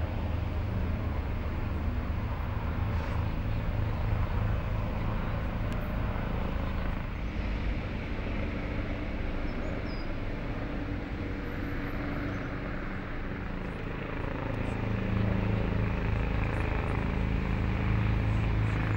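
A motor vehicle's engine running nearby, a steady low hum over general street noise, growing louder for the last few seconds.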